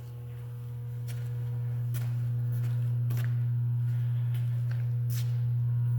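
A steady low hum that grows louder over the first two seconds and then holds, with a few faint clicks.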